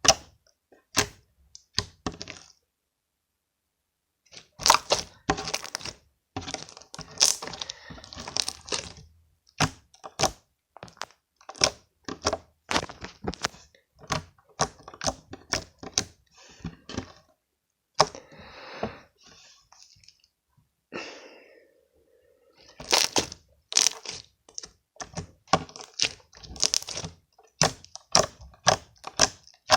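Slime being squished and worked in the hands close to the microphone, giving dense, irregular sharp pops and clicks of trapped air, with a brief pause a few seconds in.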